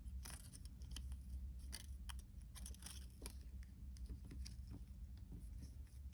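Faint, irregular light ticks and rustles of thin 26-gauge jewellery wire being handled and measured, over a steady low hum.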